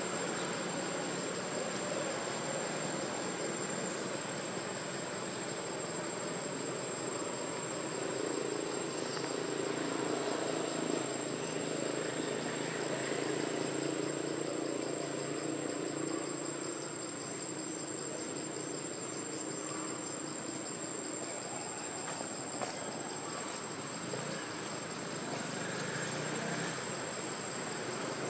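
Insects droning in the trees, one steady unbroken high-pitched tone over a constant low hiss.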